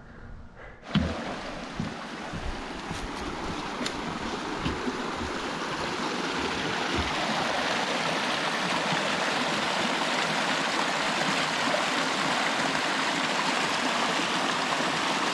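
Running water of a stream, an even rushing that comes in suddenly about a second in, grows louder over the next several seconds and then holds steady. A few soft footstep thumps sound in the first several seconds.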